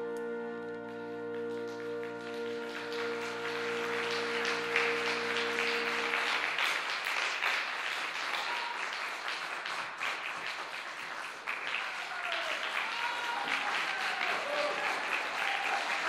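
The orchestra holds a final sustained chord, which ends about six seconds in. Audience applause builds beneath it and then carries on alone, with a few whoops rising over the clapping later on.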